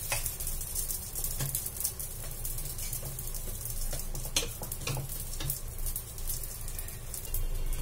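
Small uttapams (rice-and-lentil batter pancakes) sizzling in oil in a nonstick frying pan, with a few sharp clicks of a spatula against the pan as they are turned over.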